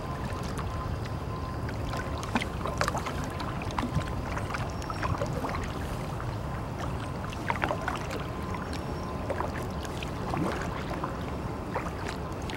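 Paddle strokes of a small paddled boat on calm water: the paddle dipping, with scattered small splashes, drips and light knocks over a steady low rumble.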